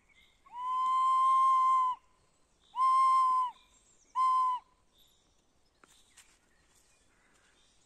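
Tin whistle blown through the nose: three notes at the same pitch, the first held about a second and a half, the second shorter and the third a brief toot, each with a breathy hiss and a slight droop in pitch as it stops.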